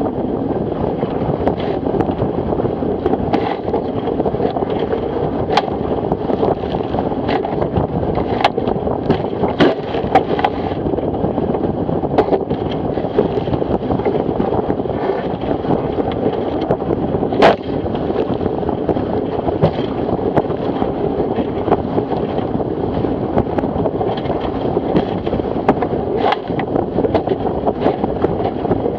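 Wind buffeting an on-board camera microphone over the rush of water along a Fireball dinghy's hull at speed, with frequent sharp slaps and knocks as the hull hits the chop and spray strikes; one louder knock about seventeen seconds in.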